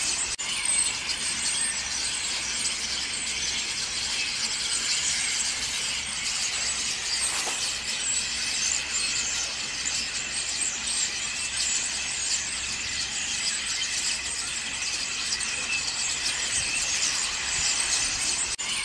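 A large flock of common starlings chattering on the ground, a dense, continuous high-pitched mix of many birds calling at once.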